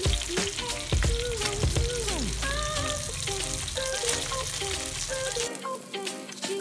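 Food frying in hot oil in a pan, a steady sizzle with occasional clicks, which falls away about five and a half seconds in.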